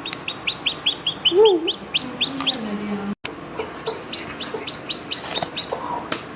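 Newly hatched chicks peeping in rapid runs of short, high, rising chirps, about seven a second. A louder, lower call from the hen comes about a second and a half in.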